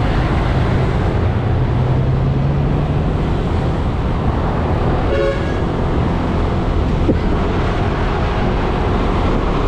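Steady wind and road rush on a moving motorcycle, with its engine and the surrounding traffic running underneath. A vehicle horn toots once, briefly, about five seconds in.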